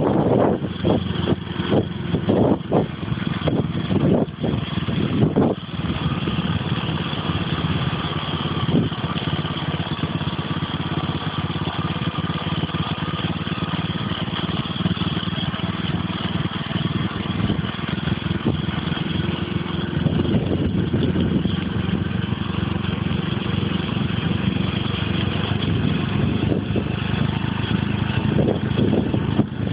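A vehicle's engine runs steadily under wind and road noise, heard from on board while driving along a road. The noise gusts unevenly for the first five or six seconds, then settles into a steady drone.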